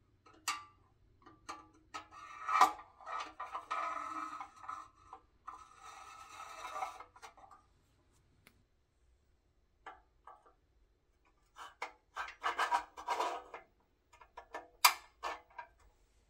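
Steel pins sliding and scraping through holes in a pressed-steel toy dragline's body, with metal-on-metal clicks and clinks as they seat; one sharp click near the end.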